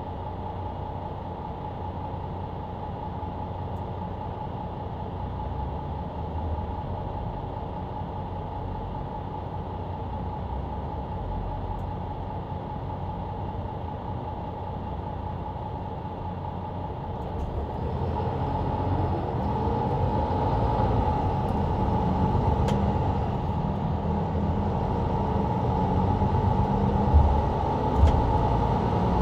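Mercedes-Benz Citaro C2 LE bus with ZF EcoLife automatic gearbox heard from the rear seats, close to the engine: a steady drone while driving. About two-thirds of the way through it grows louder as the bus picks up, and two sharp clicks come near the end.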